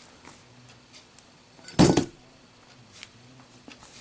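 A lit Zippo lighter dropped onto a hard surface, landing about two seconds in with one loud, short metallic clatter. A few faint small clicks before and after.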